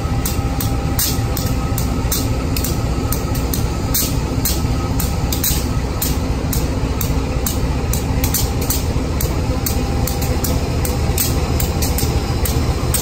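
Diesel locomotive engine running steadily as it slowly hauls a train car: a loud, constant rumble with a few steady tones and an irregular hiss.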